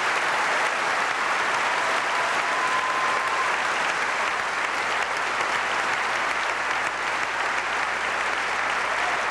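A large audience applauding steadily, sustained dense clapping filling an auditorium.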